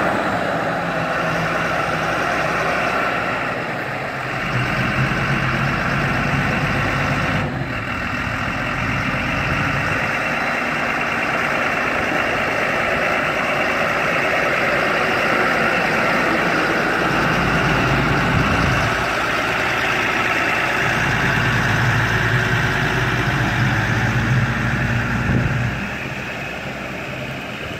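Large farm tractor's diesel engine running steadily, its low engine note swelling and easing several times and dropping off near the end.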